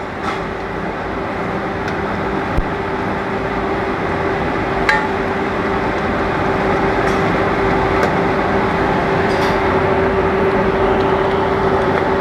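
Steady rushing noise with a low hum from a commercial kitchen's exhaust hood fan and gas burner. A steel ladle knocks and clinks against an aluminium pot a few times as a curry is stirred, one knock near the middle ringing briefly.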